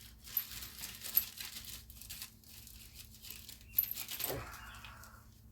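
Small metal engine parts being handled on a workbench: scattered light clicks and clinks, with a louder cluster of them about four seconds in.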